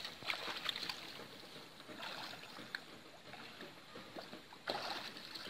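Pond water splashing and sloshing as people wade knee-deep and drag a fine mosquito net through it, with louder splashes about half a second in and again near the end.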